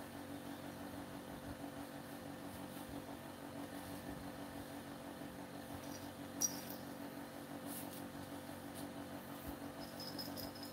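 Quiet room with a steady low hum, a single faint click about six seconds in, and a thin high-pitched squeak near the end.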